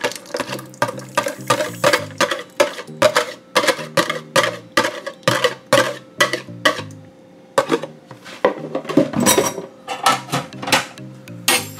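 Rapid clinking and clattering of a wire whisk against a plastic container and a stainless steel mixing bowl while the liquid batter ingredients are emptied into the flour, over background music.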